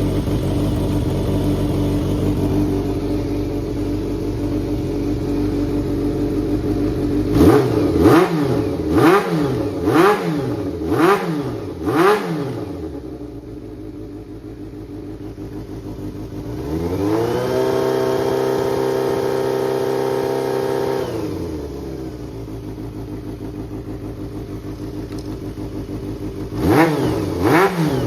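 Kawasaki Zephyr χ (ZR400C) air-cooled 400 cc inline-four engine idling, then blipped five times in quick succession, later held at a steady higher speed for about four seconds before settling back, with more quick blips near the end. It runs cleanly, with no abnormal noise, as the seller puts it.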